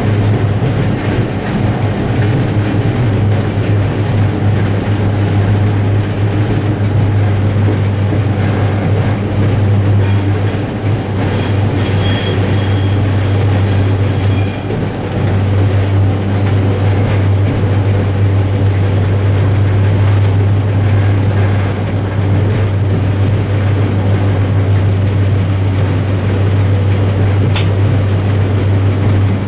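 M62 diesel locomotive running steadily under load with a deep constant drone, heard from inside the cab, with the wheels rolling on the rails. For a few seconds midway a high squeal from the wheels rises over it as the train runs through points.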